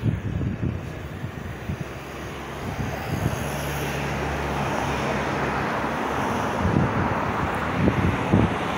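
A steady engine rumble builds up and holds, with wind gusting on the microphone.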